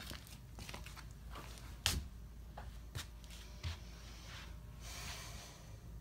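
Scattered light knocks and rustles, the sharpest about two seconds in, with a longer rustle near the end.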